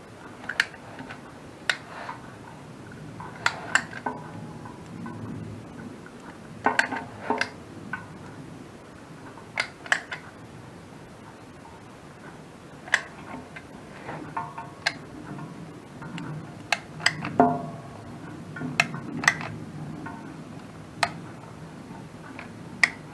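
Manual caulking gun clicking as its trigger is squeezed to push out silicone: sharp metallic clicks, single and in pairs, every second or two, over a faint low steady hum.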